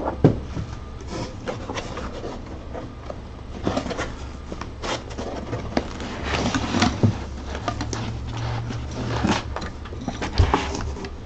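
Packaging and 3D-printer parts being handled while unboxing: rubbing and scraping with scattered light knocks and clicks, over a low steady hum.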